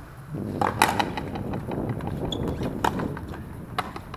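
Frontenis rally: sharp cracks of the rubber ball off rackets and the frontón wall, about three clear ones, over a rough rushing noise that starts about half a second in.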